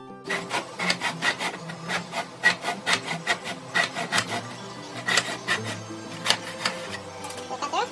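Handsaw cutting through a wooden 2x4 in a plastic miter box: quick, uneven back-and-forth strokes, several a second.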